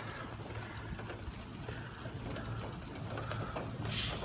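Steady rain falling and water running on wet pavement, with a low steady hum underneath.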